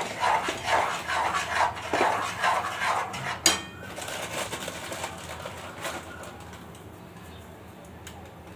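Kitchen clatter of utensils against a pan for the first few seconds, ending in a sharp clack, then quieter handling sounds with one more click.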